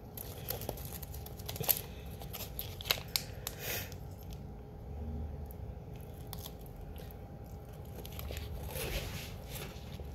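Crinkling and rustling of a plastic single-serve peanut butter packet being torn open and squeezed, with scattered light clicks and a short tearing rasp about four seconds in. A crunchy bite into a wafer near the end.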